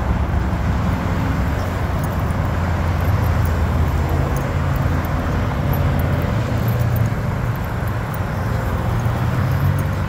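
Steady road traffic noise: a continuous low rumble of cars.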